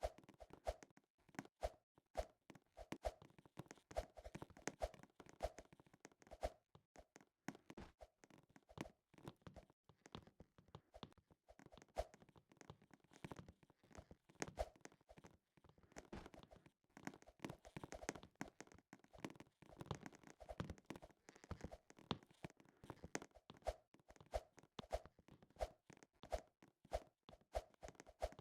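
Faint, scattered clicks, taps and light crinkling from small things being handled carefully to keep them quiet, as in opening something without making noise.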